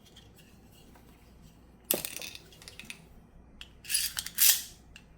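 Small metal pistol and magazine parts handled on a bench: a sharp metallic click about two seconds in, then a louder, longer clinking rattle a couple of seconds later.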